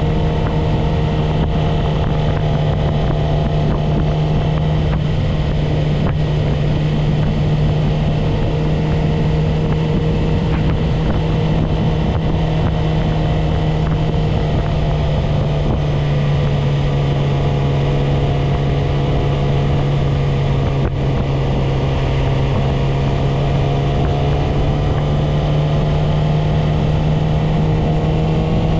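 Yamaha YZF-R6 inline-four sport-bike engine running under way at fairly steady revs, its pitch dipping slightly about halfway through and climbing again near the end. Wind rushes over the microphone throughout.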